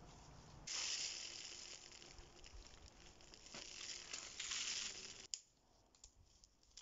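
Rustling and crackling of dry leaves, twigs and moss as someone moves about and handles them, stopping with a sharp click about five seconds in.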